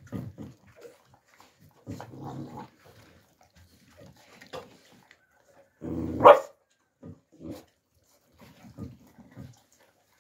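Alabai puppies eating from metal pans, with low growls near the start and again about two seconds in. About six seconds in, a growl breaks into one loud, short bark as a littermate comes up to the food: a puppy guarding its food. Small chewing and clicking sounds in between.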